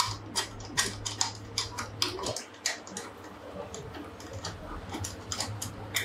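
Irregular small metal clicks and clinks as screws are set into the gearbox mounting plate of a fully automatic washing machine, over a low steady hum.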